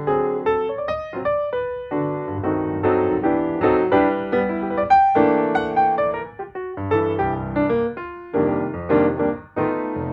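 Background piano music, chords and melody notes played steadily throughout.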